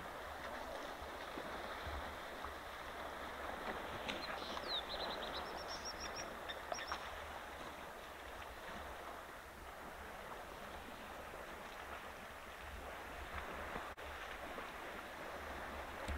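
Steady wash of water sloshing and splashing as a herd of African elephants wallows in a muddy dam. A bird calls in a quick run of short, high chirps from about four to seven seconds in.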